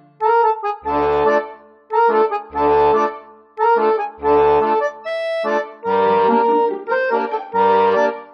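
Instrumental background music: sustained chords over a low bass note that returns about every second and a half.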